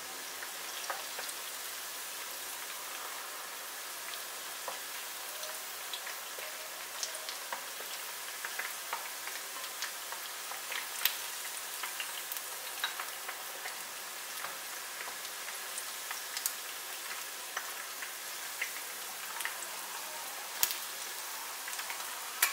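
Batter-coated chicken strips deep-frying in a pan of hot oil: a steady sizzling hiss with many scattered sharp crackles and pops.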